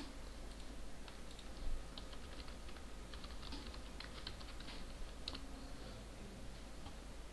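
Typing on a computer keyboard: a quick irregular run of key clicks, with one brief louder knock about one and a half seconds in.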